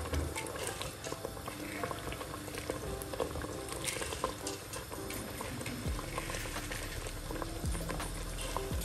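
Jollof rice base of tomato-pepper stew bubbling at a boil in a stainless steel pot, with dry rice poured into it about halfway through.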